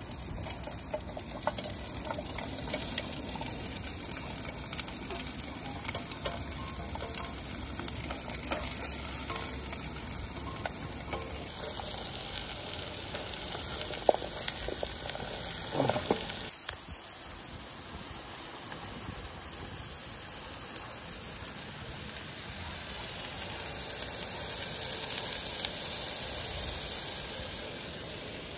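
Chopped vegetables sizzling as they fry in a pot on a camping gas stove, with scrapes and knocks of a plastic spatula stirring them that stop a little over halfway through.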